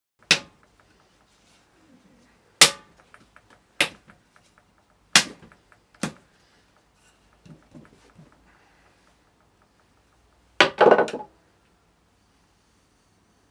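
Hands slapping and patting the soft clay wall of a large coil-built jar: five sharp single slaps at irregular intervals, a few faint knocks, then a quick pair of slaps near the end.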